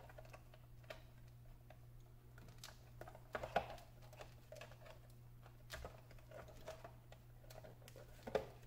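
Faint, scattered clicks and taps of a plastic ebike battery case being pressed and worked closed by hand, loudest about three and a half seconds in.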